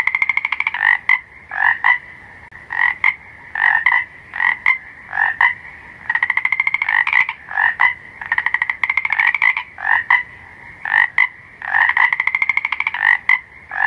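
Frogs calling: short croaks, often in pairs, alternate with rapid pulsed trills lasting about a second. The calls repeat over and over above a faint hiss.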